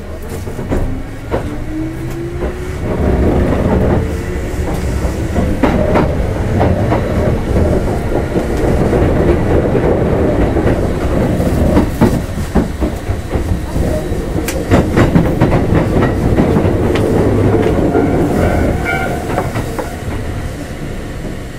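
Kintetsu 2800 series motor car Mo 2815 pulling away and running, heard from inside the car. The traction motor whine rises in pitch over the first few seconds as the train accelerates, then gives way to steady running noise with the clickety-clack of wheels over rail joints. The sound eases off near the end.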